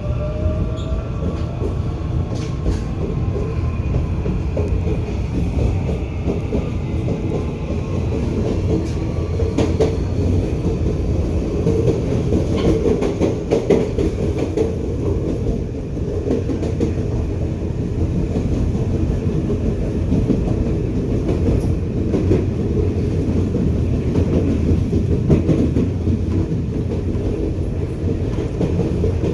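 Electric commuter train running on track: a steady rumble with repeated wheel clicks over the rail joints. Near the start a whining tone shifts in pitch.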